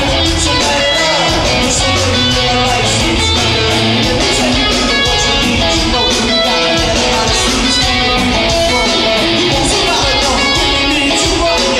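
Live band music led by electric guitar, loud and continuous.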